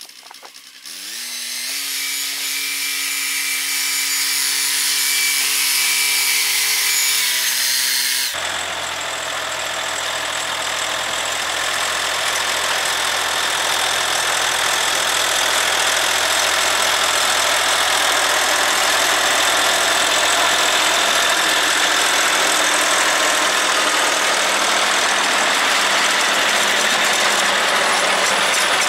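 A Scout compact tractor's engine revs up about a second in and runs steadily. After an abrupt change at about eight seconds, the engine runs with its rear-mounted rotary tiller churning through grassy soil close by, a denser, noisier sound.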